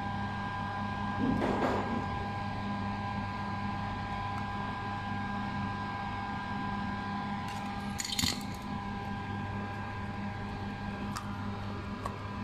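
Steady electrical hum with a few faint handling noises at a soldering bench: a brief rustle about a second in, and a short cluster of small clicks about eight seconds in.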